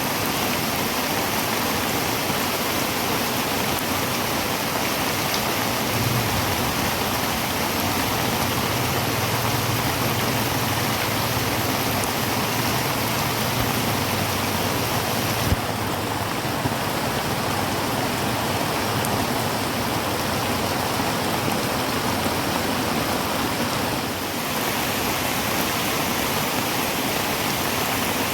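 Heavy rain drumming steadily on a tin roof, a dense even patter, with a faint low hum for several seconds in the middle and a single sharp click about halfway through.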